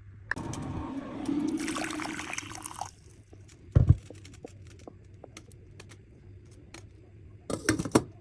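Liquid being poured for about two and a half seconds, then a single low thump and scattered light clicks, with a quick cluster of louder knocks near the end.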